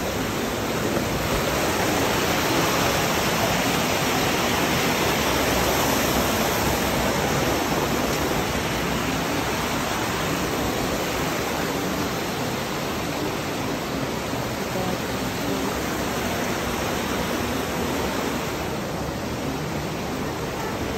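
Creek water rushing over rocks in a small cascade of white water: a steady, loud rushing hiss that swells a few seconds in and eases slightly near the end.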